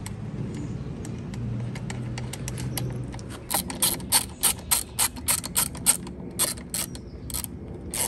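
Small hand ratchet clicking as it threads a motorcycle handlebar end-weight bolt. Faint at first, then from about three and a half seconds in, a quick run of sharp clicks, several a second.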